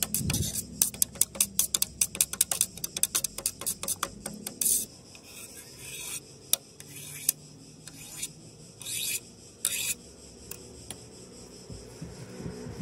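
A stick stirring thick paint in a metal paint tin, scraping and knocking against the tin's wall in rapid strokes for about the first five seconds, then a few separate scrapes.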